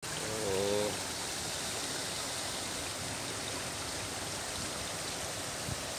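Steady rushing of running water, an even noise. Near the start a short pitched call or voice sounds for about half a second.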